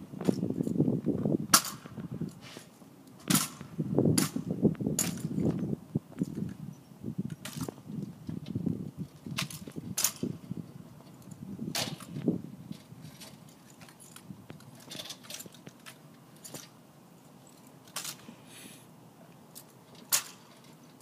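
Drill rifles handled in an exhibition rifle-inspection routine: irregular sharp slaps and clacks of hands catching and striking the rifles. A low rumble sits under the first half, and the clacks thin out after that.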